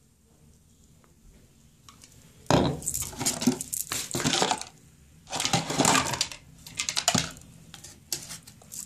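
A cardboard hair-dye box being opened and its plastic bottles and tubes taken out and set down on a tile floor. The sound comes as two spells of clattering and clicking, the first about two and a half seconds in and the second about five seconds in, with a few lighter clicks near the end.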